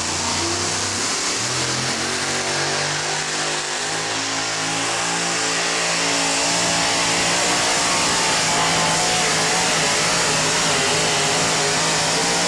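Supercharged pulling-truck engine running flat out under load as the two-wheel-drive truck drags the weight-transfer sled. Its pitch climbs in steps over the first few seconds, then holds steady and slightly louder for the rest of the pull.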